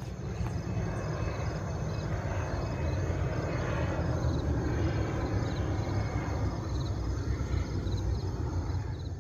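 A distant Bombardier CRJ-900 regional jet climbing out after takeoff. Its two turbofan engines make a steady, broad rumble.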